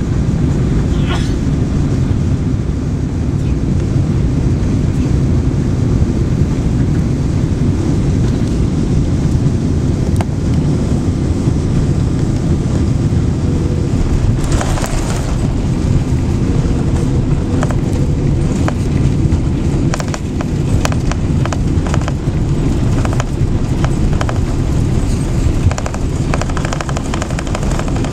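Cabin noise of a Boeing 777-200ER landing: a loud, steady low rumble of engines and airflow. About halfway through comes a brief burst of noise as the wheels touch down, followed by rattling and clicking in the cabin as the plane rolls down the runway.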